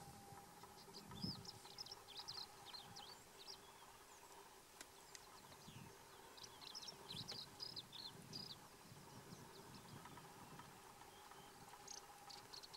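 Faint birdsong in the bush: two spells of quick, high chirping notes over a quiet background with a faint steady hum.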